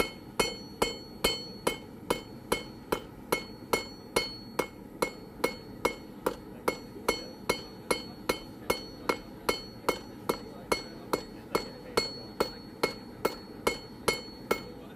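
Hand hammer striking hot steel on an anvil in a steady rhythm of about three blows a second, each blow ringing, as the end of the bar is forged out flat. The blows stop shortly before the end.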